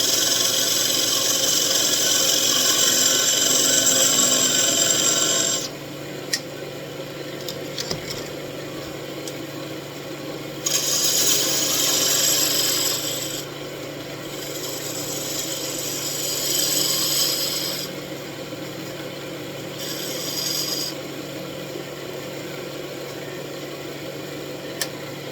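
Wood lathe running with a steady motor hum while a tool or abrasive is held against the spinning wand blank, giving a loud hiss for the first five or so seconds and then three shorter hissing passes.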